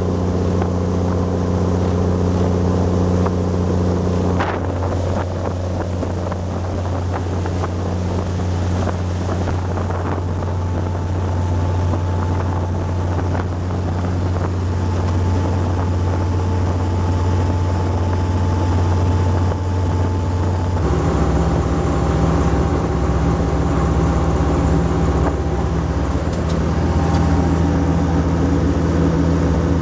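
Volvo Penta D9-575 marine diesel driving the boat under way, a steady low drone with wind on the microphone. A single knock about four seconds in, and the engine note shifts about twenty seconds in.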